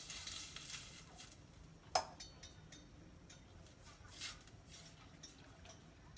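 Liquid poured from a small metal cup into a stainless steel pot, splashing for about a second. A sharp metal clink about two seconds in, then chopsticks stirring in the pot with light scattered taps.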